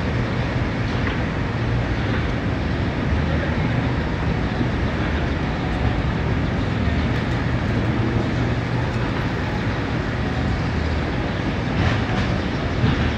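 Steady rumble of city street noise, traffic-like with a low hum, with a couple of brief knocks near the end.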